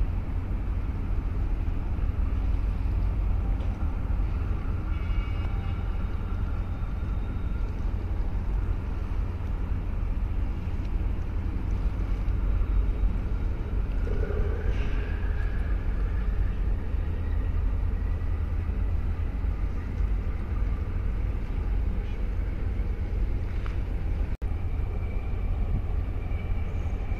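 Steady low rumble of a large container ship and its harbour tug under way at slow speed.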